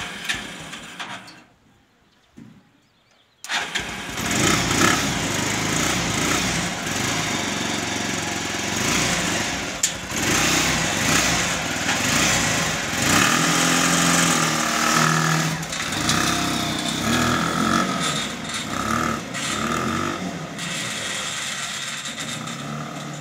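Small engine of a homemade miniature jeep catching about three and a half seconds in after a brief quiet, then running loudly and revving up and down as the jeep pulls away on a test drive.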